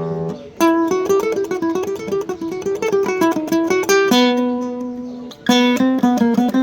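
Yamaha CG162C classical guitar with Savarez 500CJ nylon strings, played solo. A chord rings out, then rapid repeated picked notes run over a held bass note. A ringing chord about four seconds in is followed by the quick notes again.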